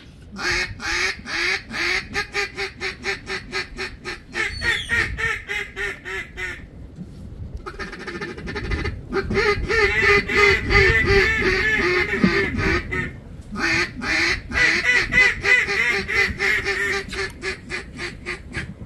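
Duck quacking in rapid runs of several quacks a second, breaking off about six and a half seconds in, then resuming denser over a low rumble before going on in steady runs.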